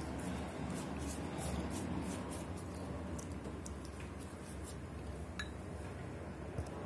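Soft, faint dabbing and squishing of a silicone pastry brush spreading oil over raw börek dough, over a steady low hum, with a single light tick about five seconds in.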